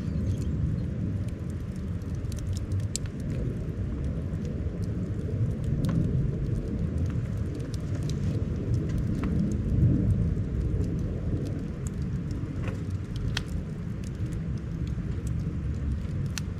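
Wood fire crackling, with scattered sharp pops, over the steady low rush of a river.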